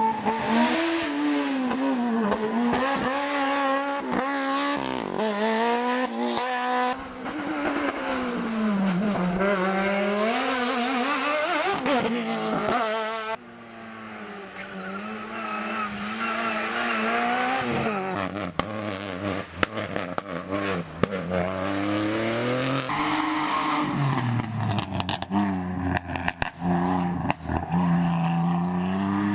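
Race car engines revving hard, the pitch climbing and dropping back over and over as the cars shift gears, with many sharp pops. The sound changes abruptly about seven and thirteen seconds in as one car gives way to another.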